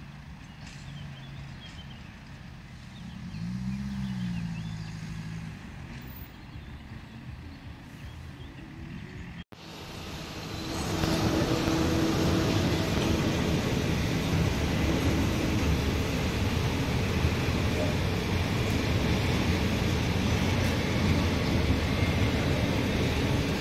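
A freight train rolling away, with a road vehicle's engine briefly rising and falling in pitch about 4 s in. After a sudden break, a freight train of cement hopper wagons rolls past close by, a loud steady rumble of wheels on rails.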